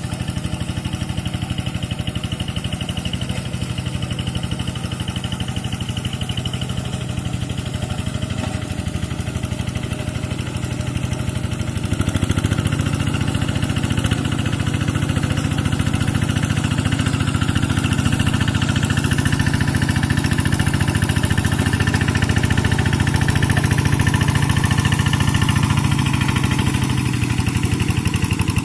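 Kubota RD single-cylinder diesel engine of a two-wheel hand tractor running steadily while harrowing a field, growing louder about twelve seconds in.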